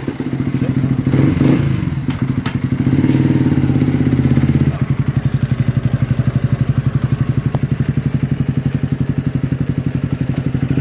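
Motorcycle engine running, then settling about five seconds in to a steady idle with an even, rapid pulse.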